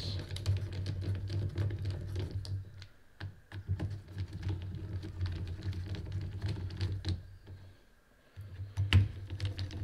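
Screwdriver bit turning the small cap screws of steel scope rings, giving irregular small metallic clicks and ticks as the screws are snugged up to light tension, over a steady low hum.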